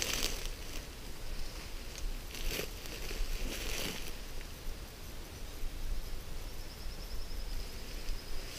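A few short rustling and scraping bursts as a guyline cord is pulled tight and tied off around a tree trunk.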